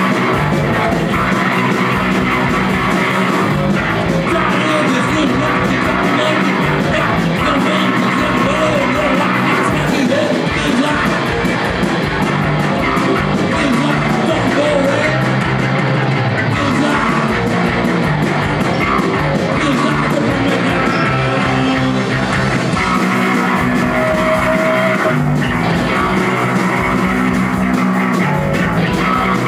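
Punk rock band playing live: electric guitar, bass and drums.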